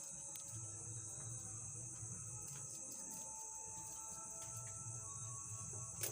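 Steady high-pitched insect chirring in the background, with faint scattered clicks and a low hum.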